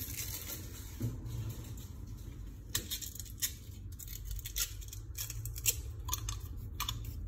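A crisp fortune cookie being broken up by hand and its paper fortune slip pulled out: scattered light clicks and crackles at irregular intervals, over a low room hum.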